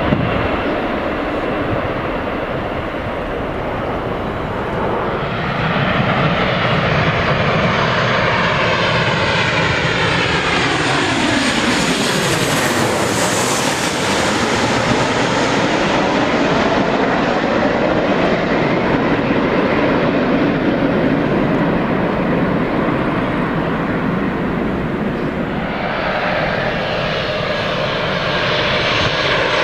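Jet airliner passing low overhead on landing approach, its engine whine sweeping down in pitch as it goes by and loudest about halfway through.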